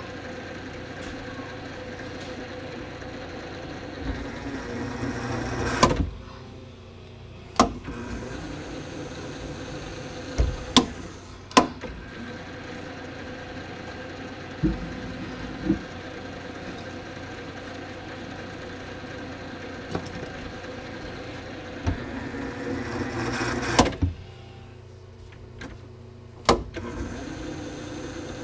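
Benchtop milling machine running with a drill bit in the chuck, drilling aluminium strut-end blanks: a steady motor whine. Twice it builds over a couple of seconds and stops at a sharp knock, with a few more loud clicks along the way.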